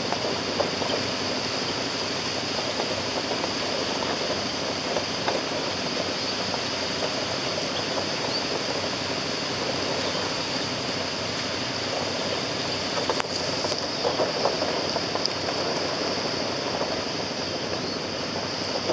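Small waves washing and breaking along a floating barrier of plastic drums and over a rocky shore, mixed with steady wind on the microphone, under a constant high whine. A brief knock comes about thirteen seconds in, followed by a slightly louder stretch.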